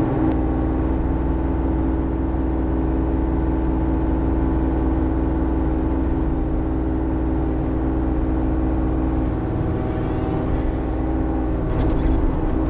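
Bobcat E35i mini excavator's diesel engine running steadily while digging, heard from inside the cab.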